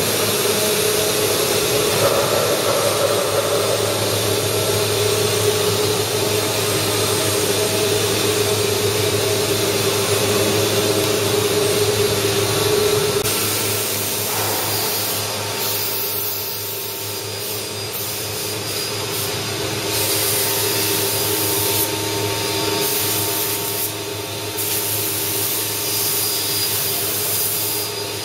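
CNC wood router spindles running and cutting wood: a steady machine whine over a haze of cutting noise, changing in character about halfway through.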